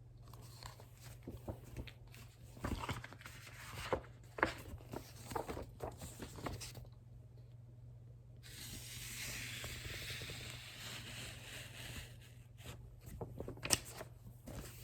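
Faint rustling, scraping and light knocks of a picture book being handled and its pages turned, with a soft rustle about nine seconds in, over a steady low hum.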